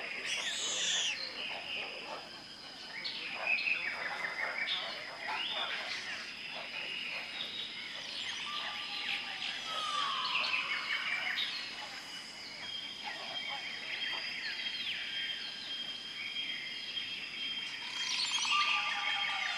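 Tropical rainforest ambience: many birds calling and chirping over one another, over a steady high insect drone. A clear whistled note slides down twice, about halfway through and again near the end.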